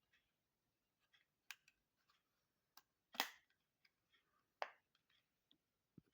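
Sparse small clicks and taps of hands and tools working on a laptop's casing while opening it up. The loudest is a sharp click with a brief rasp about three seconds in, and another sharp click comes a second and a half later.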